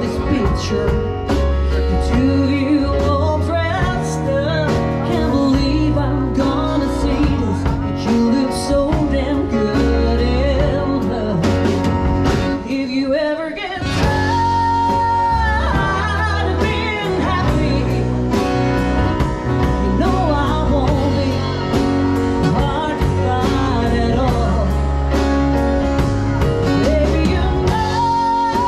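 Live country song: a woman singing over instrumental accompaniment with a steady bass rhythm. About halfway through the music drops briefly, then a long held sung note follows.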